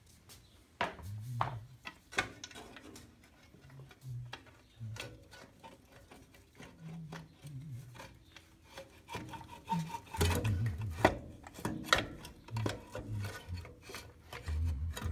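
Irregular clicks, knocks and scraping of hand work on metal parts being worked loose during disassembly, getting busier and louder about two-thirds of the way through.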